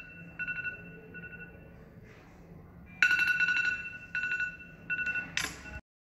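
Smartphone alarm ringtone: a repeating electronic melody of high beeping tones. It drops to a faint level early on, comes back loud about three seconds in, and cuts off near the end after a brief swish.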